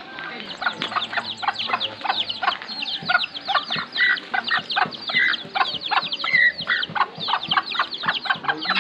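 Chickens calling: a dense run of short, high, falling clucks and peeps, several a second.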